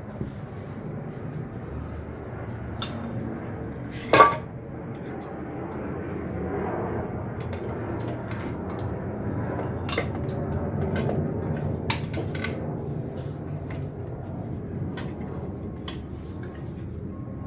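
Metal hand tools and engine parts clinking and clanking during work on a Chevy 350 V8, with scattered sharp clinks and one louder clank about four seconds in.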